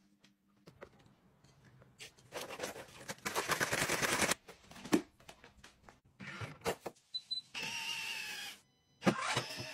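A run of short household cleaning sounds: a flat mop swished in a bucket of water, a sharp knock, then a small electric motor whirring in two short runs, as from a smart trash can's powered lid.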